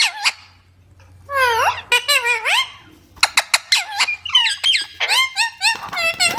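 Pet rose-ringed (ringneck) parakeet calling: a run of short squeaky calls, each swooping down and back up in pitch. The calls start about a second in and come faster through the second half.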